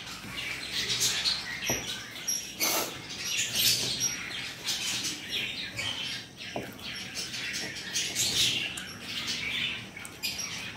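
Close-up mouth sounds of people eating rice by hand: irregular wet chewing and lip smacks, several a second, with no talking.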